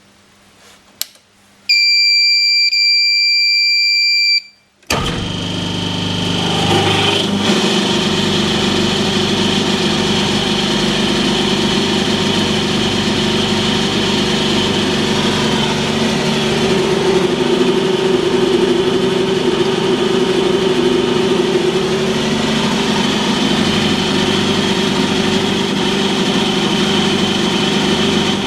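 A steady electronic beep lasting about three seconds. Then, about five seconds in, a hydraulic test stand's pump drive starts up and runs steadily with a loud hum.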